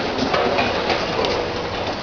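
Concrete and masonry crumbling and falling as an ultra-high-reach demolition excavator's attachment breaks into a building wall: a dense, steady crackle of many small impacts.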